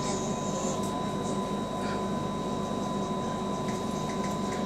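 Steady running noise inside a moving passenger train car: an even rumble and hiss with a thin, constant tone over it.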